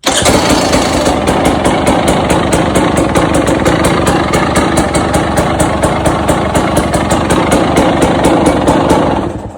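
KTM 300 single-cylinder two-stroke engine running at idle, loud and steady, on a bike just fitted with a new starter motor. It stops near the end.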